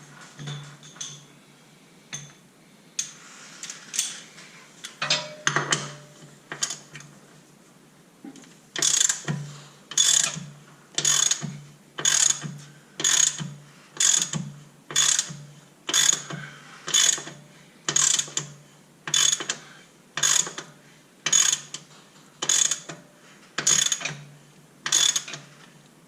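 Hand ratchet wrench working a leaf-spring mounting bolt loose. A few scattered metal clinks come first, then from about a third of the way in a steady run of ratcheting strokes about once a second.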